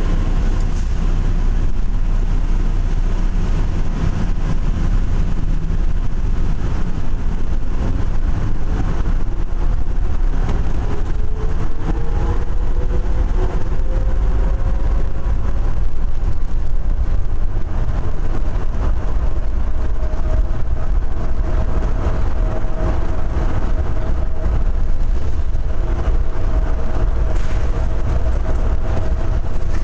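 Denver airport's rubber-tyred automated underground train running through a tunnel, heard from inside the car: a steady low rumble with an electric motor whine that climbs in pitch over several seconds, then holds steady.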